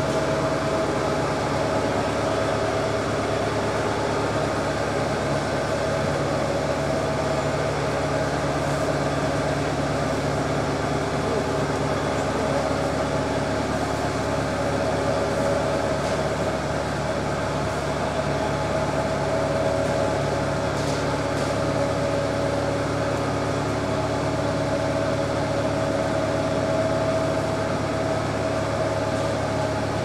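A boat engine running at a steady pitch: an even, unbroken drone with several constant humming tones over a noisy rumble.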